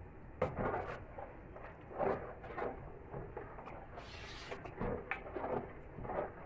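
A ladle stirring thick rice porridge in a large metal pot, with irregular clunks and scrapes against the pot. A short plastic-bag rustle about four seconds in.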